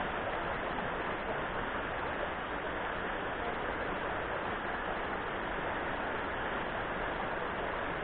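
Shallow river rapids running over rocks and boulders: a steady, even rush of water.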